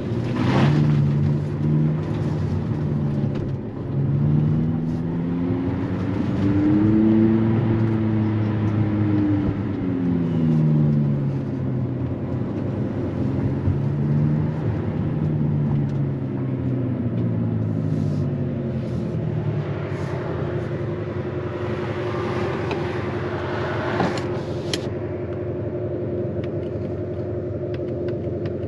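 Abarth 500e electric hatchback's synthetic exhaust-note sound generator, its pitch rising and falling with the car's speed as it accelerates and eases off, then holding steady while cruising, over tyre and road noise.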